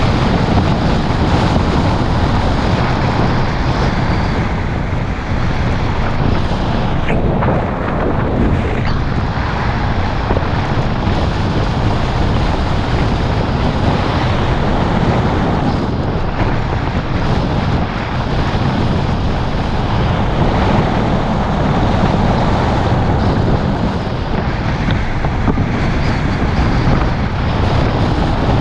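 Wind buffeting a GoPro's microphone on a moving car, over a steady rumble of road and tyre noise.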